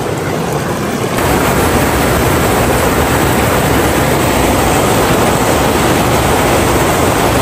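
Steady rush of a waterfall pouring into a rock pool, getting louder and deeper about a second in.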